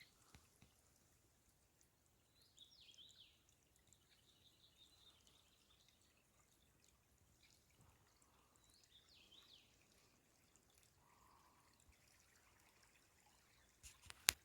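Faint trickle of a small clear stream, with a bird singing two short warbling phrases, one a few seconds in and one about nine seconds in. Two sharp clicks near the end.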